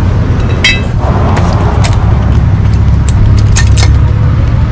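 Metal clinking and rattling as brake pads are worked out of the caliper bracket: a few sharp clinks, one with a brief metallic ring, over a steady low rumble.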